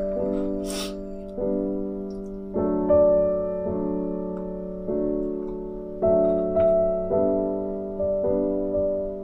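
Background piano music: slow, gentle chords, a new one struck about every second and left to ring down.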